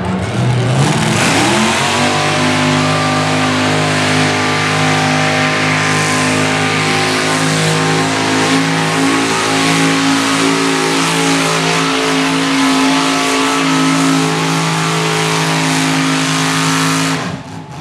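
Mini modified pulling tractor's engine revving up as it launches with the sled, then held at a high, steady pitch through the pull. The engine drops away sharply near the end as the run stops.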